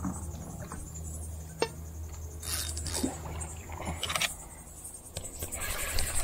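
Scattered clicks, scrapes and rattles of rod and tackle being handled in a small boat, loudest near the end. Under them runs a steady high insect buzz and a low hum.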